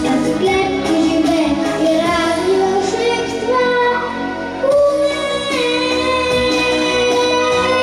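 Children's vocal ensemble singing over an instrumental backing track, holding one long note through the second half.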